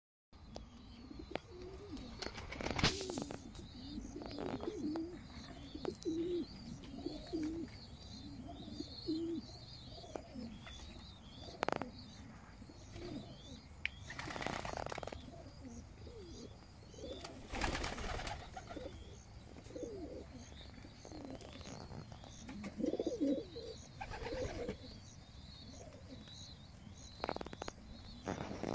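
Racing pigeons cooing again and again, with a few brief wing flaps among the flock and faint higher chirps behind.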